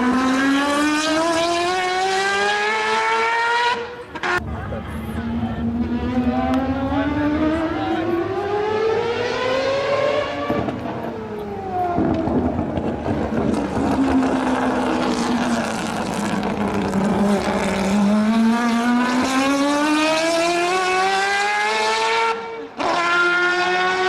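Motocross bike engines running on track: a bike's engine climbs steeply in pitch as it accelerates, drops back and climbs again several times, with other bikes running underneath. The sound breaks off abruptly about four seconds in and again near the end.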